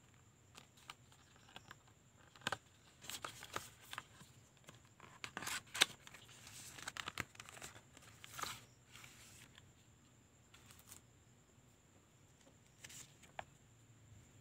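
Cardboard and paper packaging of a phone box being handled: irregular rustling and scraping with sharp clicks, busiest in the first half and thinning out to a few clicks near the end.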